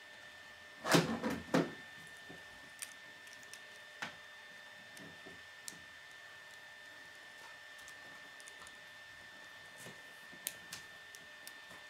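Small plastic Lego parts being handled and snapped as a mini mech is folded into a new shape: a quick cluster of plastic clicks and rattles about a second in, then scattered single clicks. A faint steady high whine sits underneath.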